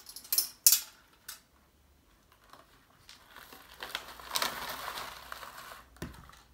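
A few sharp clicks in the first second, then brown paper rustling and crumpling for about two and a half seconds as a paper funnel is pulled off a glass bottle's neck and scrunched up in the hands.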